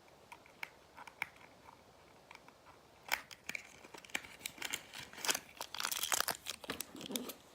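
Plastic toy blind-pack packaging being handled and torn open. There are a few light clicks at first, then from about three seconds in a busy run of crinkling and tearing.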